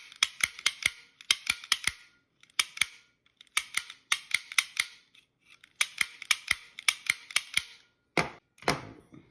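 Lock snap gun (pick gun) being triggered again and again in a pin-tumbler lock: sharp snaps in quick runs of about four a second with short pauses between runs, each snap flicking the pins upward while light tension is held on the lock. Near the end come two duller, heavier clacks.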